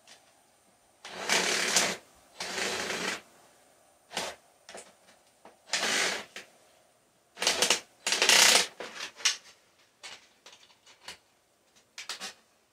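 Light metal rattling and clattering in several bursts of about half a second to a second each, with scattered clicks between, as thin metal pieces are handled.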